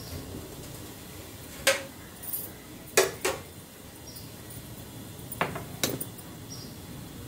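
About five sharp clinks of a ceramic cup and steel plates being handled, in two close pairs and a single one, over a steady low hiss from the stove.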